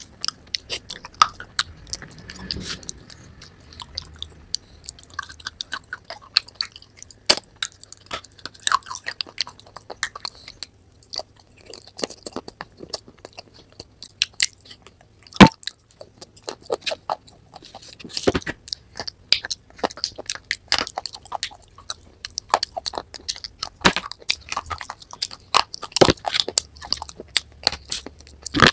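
Close-miked crunching and chewing of brittle baked-clay pieces coated in a creamy paste. There is a steady run of crisp crunches, broken by a few much louder snapping bites about halfway through and again near the end.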